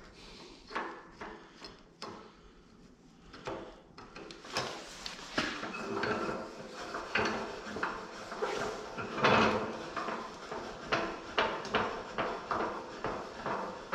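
Metal clanking and knocking as the steel vise jaw of a small horizontal metal-cutting bandsaw is handled and fitted, with tools picked up and set down on the saw's cast table. A few separate knocks at first, then a denser run of clattering from about four seconds in.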